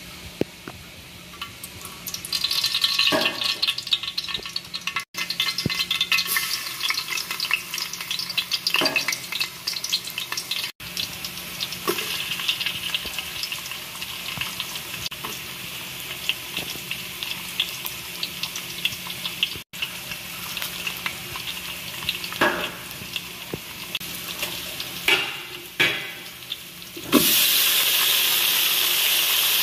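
Oil sizzling in a kawali as chopped garlic and onion fry, with a spatula scraping and knocking against the pan. Near the end a much louder, steady sizzle starts suddenly as beef goes into the hot oil.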